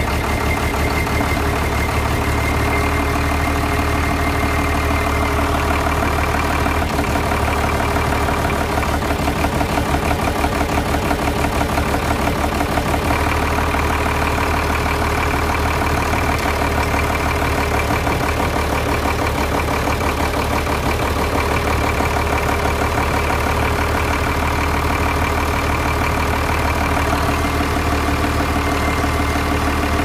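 Diesel engine of a Cat 320D2 excavator idling steadily, heard up close in the open engine bay.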